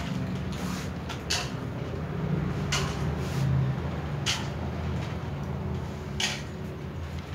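Dry cat food rattling out of a plastic tub into small bowls in short pours, about five of them a second or so apart, over a steady low hum.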